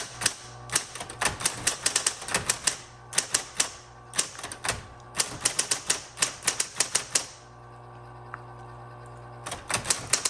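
1970s Smith-Corona Coronomatic Super 12 electric typewriter typing: quick runs of sharp type-bar strikes over the steady hum of its running motor. The strikes stop for about two seconds near the end while the motor hums on, then start again.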